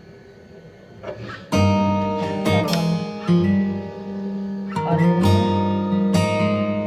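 Background music: an acoustic guitar strumming chords, coming in about a second and a half in after a quiet opening.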